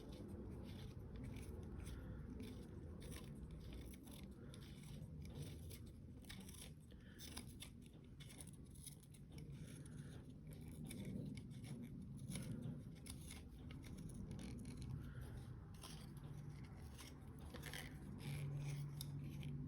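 Faint, irregular small clicks and scrapes of a spray gun being handled, its air-valve plunger worked in and out after being freed with a spring.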